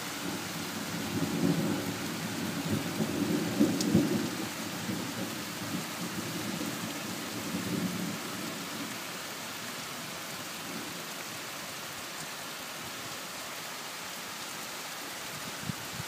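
Heavy rain pouring steadily onto leaves and foliage. A low rumble of thunder builds in the first seconds, is loudest about four seconds in, and dies away by about eight seconds, leaving only the rain.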